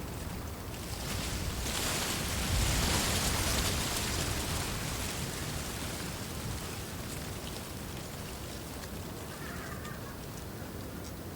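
Wind blowing through a bed of reeds, a steady rustling hiss that swells into a stronger gust a couple of seconds in, with a low rumble at its peak, then settles back.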